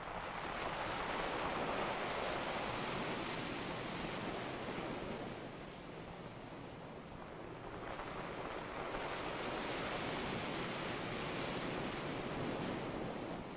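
Ocean surf: a hiss of breaking water that swells and fades over several seconds, twice, like waves washing in.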